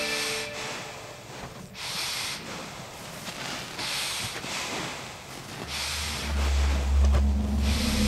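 Breathing close to the microphone: hissy, noisy breaths that swell about every one and a half to two seconds. A loud low drone comes in near the end.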